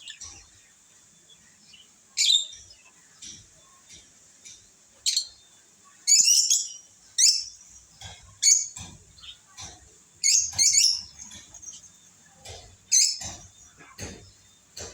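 Lovebirds giving short, sharp chirps at irregular intervals, several of them in quick clusters.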